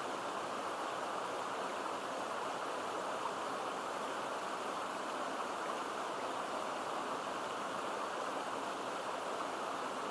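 A stream's water flowing and babbling steadily into a pool, an even, unbroken rush.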